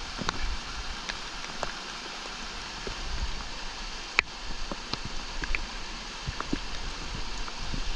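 Small rocky mountain creek running over stones: a steady rush of water with scattered drips and splashes, and one sharp click a little over four seconds in.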